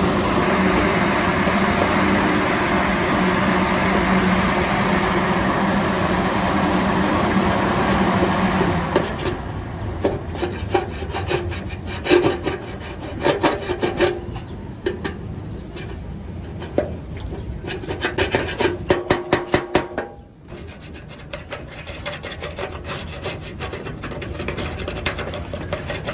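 A steady mechanical hum for about nine seconds, then a series of quick rasping, rubbing strokes, several a second, pausing briefly near the end.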